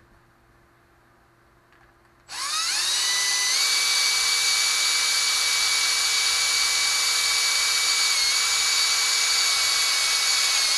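Milwaukee M18 cordless drill boring a small pilot hole through a 3D-printed PLA part. The motor whine starts about two seconds in, climbs in pitch as it spins up, then holds steady with a brief dip partway through.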